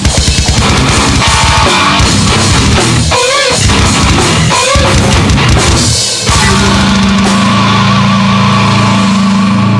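Heavy metal band playing: distorted electric guitar, bass guitar and drum kit in a fast, dense passage. About six seconds in the drums stop and a final chord is left ringing, with a wavering high guitar note over it.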